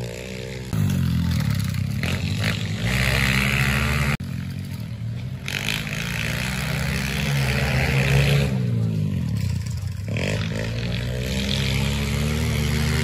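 Pit bike engine revving up and easing off as a small dirt bike rides laps of a dirt track, its pitch rising and falling again and again. The sound breaks off sharply for an instant about four seconds in.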